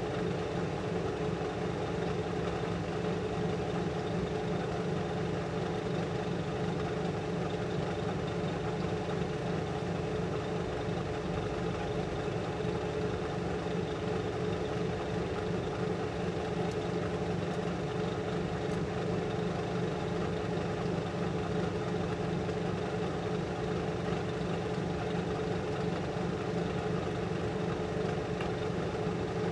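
Steady, unchanging machine hum with a low tone and a stronger mid tone over an even rush of air, typical of a clean-room air-filtration fan.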